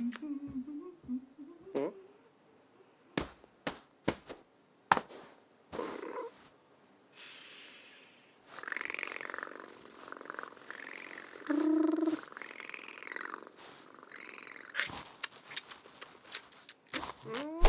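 Cartoon cat, voiced by a person, purring and making a run of contented rising-and-falling trills and murmurs as it paws and chews at a toy. Sharp little clicks and taps are scattered through the first few seconds and again near the end.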